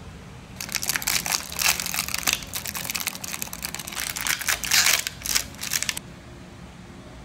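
Clear plastic film crinkling as it is peeled off a plastic tray of chocolates. It runs for about five seconds and stops abruptly.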